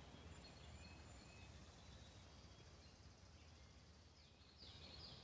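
Near silence: faint outdoor ambience with a few faint bird chirps, the last few falling in pitch near the end.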